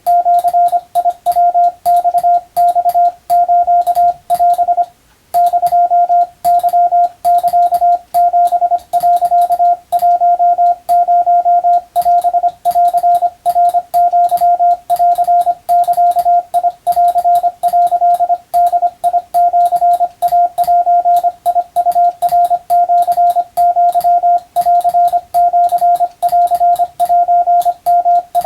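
Hand-sent Morse code (CW) practice: a single steady tone keyed on and off in dots and dashes at an even pace, sending Japanese wabun telegram practice text. A faint click comes with many of the keyings, and there is a short break in the sending about five seconds in.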